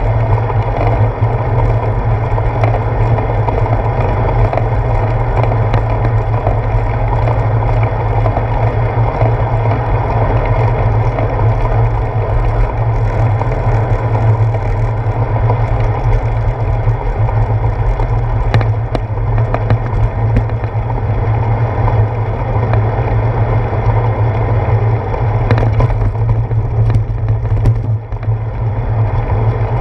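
Steady rumble and rush of wind and tyre noise from a bicycle rolling along wet pavement, picked up by a handlebar-mounted action camera, with a few short knocks from bumps in the path.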